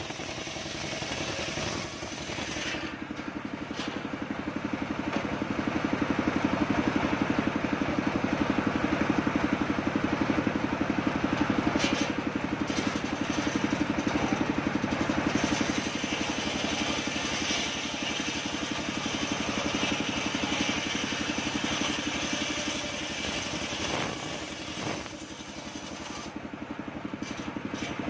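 Homemade engine-driven circular saw bench running steadily and ripping a coconut-wood log lengthwise; the cutting noise swells and stays loud through the middle as the log is fed through, and eases off briefly near the end.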